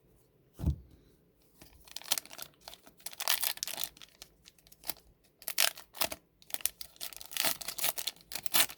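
A thump near the start, then a trading-card pack's wrapper being torn open and crinkled in irregular bursts of rustling.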